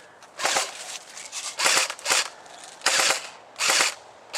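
Airsoft electric rifle firing short full-auto bursts, five quick bursts in about four seconds, each a rapid clatter of shots lasting a fraction of a second.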